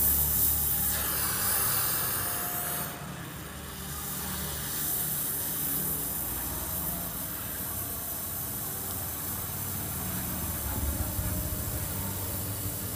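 Gas welding torch flame hissing steadily while filler rod is fed into an exhaust pipe joint, the hiss dipping briefly about three seconds in. A low rumble sits underneath at the start and again near the end.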